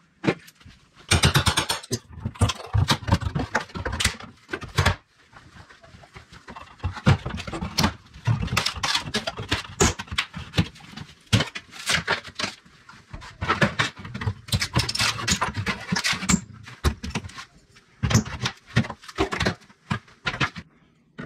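Flat pry bar working old wooden door casing off the wall: a dense, irregular run of sharp knocks and cracks from the trim and nails, with scraping between them and short pauses.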